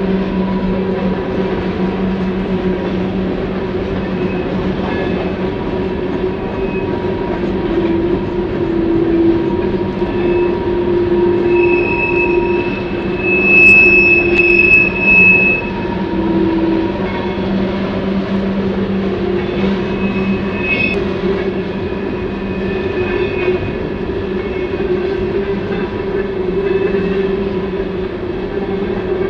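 Empty steel coal cars of a Union Pacific freight train rolling past on curved track, a steady rumble and clatter of wheels on rail. A high, thin wheel squeal rises over it for a few seconds around the middle.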